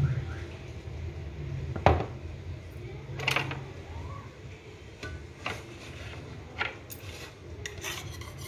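Dishes being handled: a few short clinks and knocks, the loudest about two seconds in, over a steady low hum.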